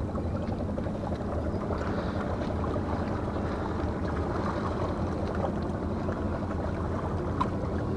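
Steady low outdoor rumble, with a few faint ticks and one small click near the end.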